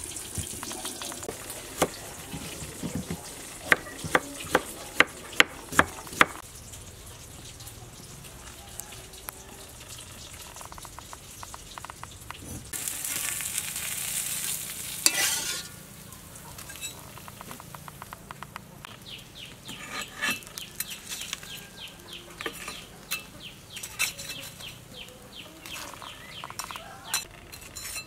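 Fish frying in hot oil, sizzling, with sharp knocks of a utensil against the pan in the first few seconds. A louder rush of sizzling comes about halfway, and then a run of quick, regular scraping strokes, about three a second.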